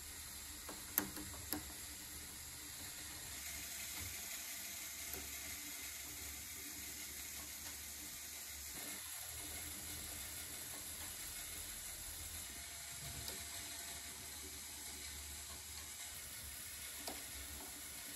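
Lego Technic chairlift mechanism running: a steady quiet whir and hiss as the string cable runs over the drive wheel and plastic pulleys. A few light clicks come about a second in and again near the end.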